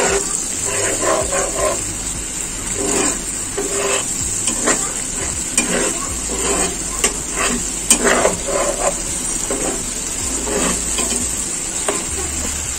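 Onion-and-spice masala sizzling in oil in a non-stick frying pan while a spatula stirs and scrapes it in repeated, irregular strokes: the masala being fried down (kosha) until the oil separates.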